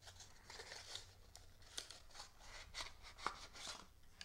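Faint scraping and light clicks of a painted wooden figure being slid out of its cardboard box tray, with one sharper knock about three seconds in.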